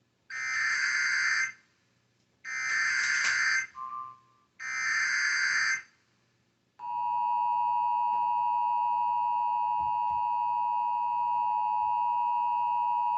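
Emergency Alert System SAME header: three buzzy digital data bursts of about a second each, a second apart, encoding a tornado warning. About seven seconds in, the steady two-note EAS attention tone begins.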